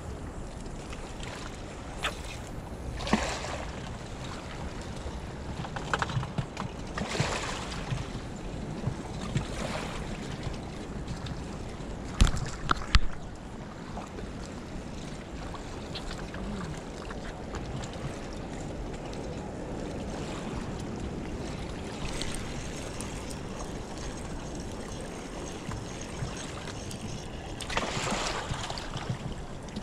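Small waves lapping at a rocky shore, with wind on the microphone. Scattered rustles and knocks from handling the fishing rod and camera break in, the loudest a few sharp knocks about twelve seconds in and more handling noise near the end.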